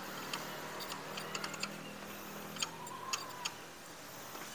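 Scattered light metallic clicks and scrapes as the round metal air-cleaner canister on an old Kubota ER75 single-cylinder diesel engine is twisted and handled by hand.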